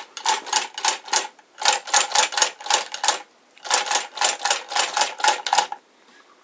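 1891 W. Birch rotary chain-stitch sewing machine running in three short bursts, a fast mechanical clatter of about six clicks a second, with brief pauses between bursts. It stops near the end.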